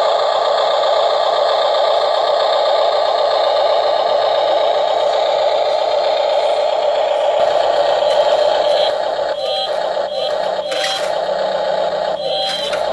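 Toy RC excavator running: a steady whir from its electric motors and gearboxes, with clicks and short tones in the second half.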